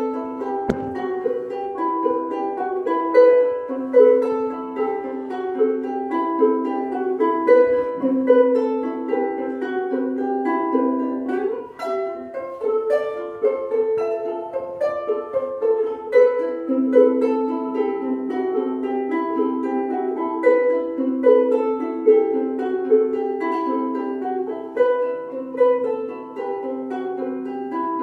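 Two ukuleles played together as a duet: a continuous run of picked notes over a recurring low note.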